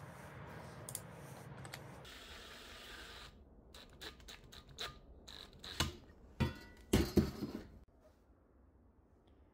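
Wooden disc being handled against a steel wheel hub, then a cordless drill boring a small hole through the disc. Short drill bursts and scraping give way to several sharp knocks and clatters about six to seven seconds in.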